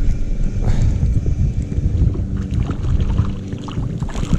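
Wind rumbling on the microphone while a spinning reel is wound in against a hooked perch, with faint scattered clicks in the second half.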